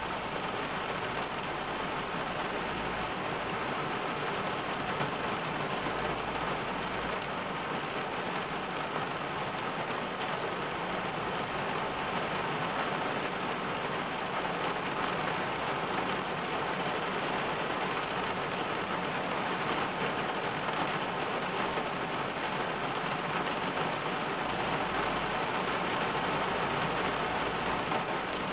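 Rain falling steadily on a car's roof and windows, heard from inside the parked car as a dense, even patter.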